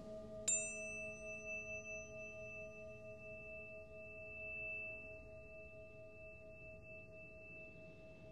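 A tuning fork struck about half a second in, a bright onset whose high overtones fade within a few seconds while one high pure tone rings on and slowly fades. Under it, lower steady tones of Himalayan singing bowls keep humming.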